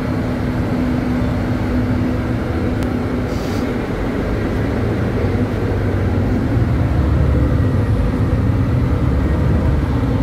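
Inside a moving articulated city bus: steady engine and road rumble, with a steady hum for the first few seconds. The rumble grows louder from about six seconds in.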